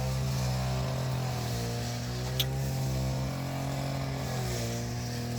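Small engine of a motorised brush cutter running steadily at high revs, one even unbroken note. A single short sharp click about two and a half seconds in.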